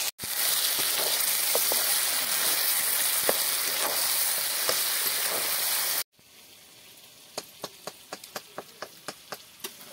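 Chicken curry frying in oil in an iron wok: a steady sizzle with a few faint scrapes of the ladle. About six seconds in the sizzle drops to a faint hiss, and a quick even run of light clicks follows, the metal ladle tapping the wok as the curry is stirred.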